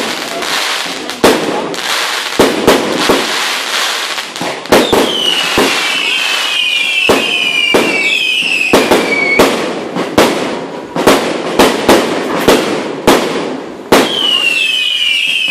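Aerial fireworks going off in a rapid, irregular string of loud bangs over a steady hiss. Runs of short, high, falling whistles come in about five seconds in and again near the end.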